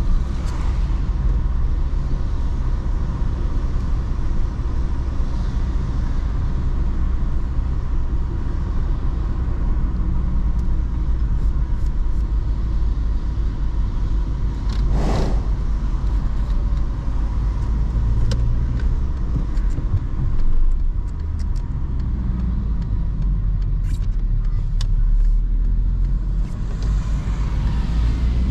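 Volkswagen Golf V 1.6 FSI's naturally aspirated four-cylinder petrol engine running under way, with tyre and road rumble, heard from inside the cabin. A short, noisy rush cuts through about halfway, and a few faint clicks come near the end.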